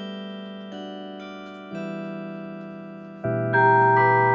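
Schulmerich Mark III Campanile electronic carillon playing a melody from its auto bell music card: single struck notes that ring and die away one after another, then a louder chord about three seconds in.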